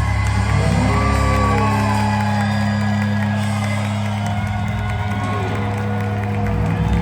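A rock band playing live in a large hall, with long held low notes, and the crowd whooping.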